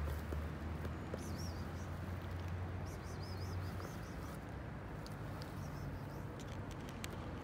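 A cat crunching dry kibble, with a few sharp crunches near the end, over a low steady hum. Two faint, wavering high chirps come about a second and three seconds in.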